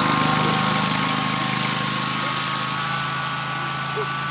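Lawn mower engine running steadily with a high whine above its hum, gradually getting quieter.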